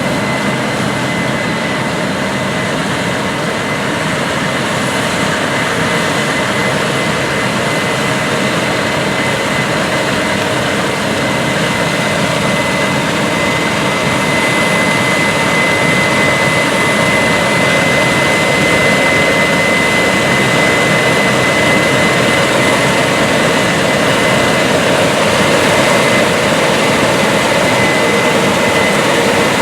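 Large Case IH harvest machinery running under load, a steady heavy engine and machine noise with a constant high whine over it, growing slightly louder about halfway through.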